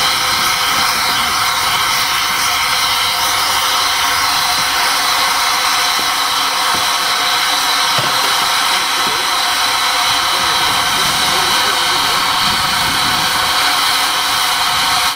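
Planet replica early steam locomotive standing in steam, with a loud, steady hiss of escaping steam.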